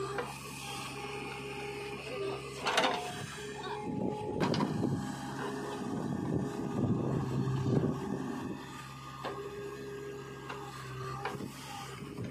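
JCB 3DX backhoe loader's diesel engine running with its hydraulics working the backhoe arm, a steady hum with a higher whine over it. A sharp knock comes about three seconds in, and the sound grows louder and rougher from about four to eight seconds in as the bucket digs into the soil.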